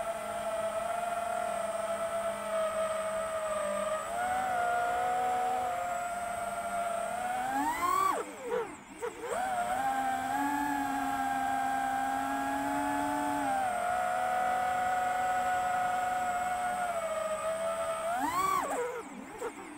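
FPV drone's electric motors and propellers whining steadily in flight. Twice, about eight seconds in and again near the end, the whine rises sharply in pitch, then breaks up and drops as the throttle is punched and cut for a flip or roll.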